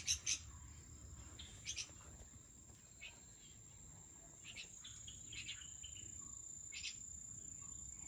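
Faint, steady high-pitched insect trill, with a few short bird chirps scattered through it.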